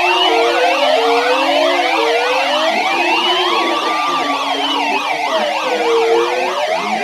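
Several sirens sounding at once: slow rising-and-falling wails layered with fast yelping sweeps and a low warbling tone.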